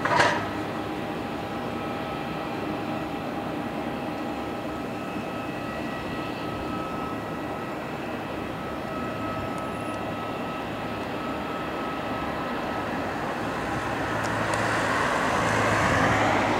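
Boeing 737 jet airliner on final approach to land: a steady engine whine with a few thin high tones, growing louder near the end as the aircraft comes close over the runway. A sharp click right at the start.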